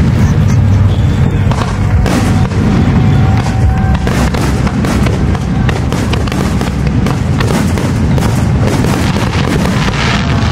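Aerial firework shells bursting in quick succession: many sharp bangs and crackles over a continuous low rumble.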